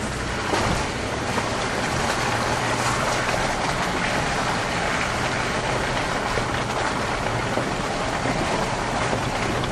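Cabin noise of a Land Rover Discovery 3 driving slowly down a muddy, rutted track: a low steady engine hum under an even rushing noise of the tyres working through wet mud, with a few faint knocks.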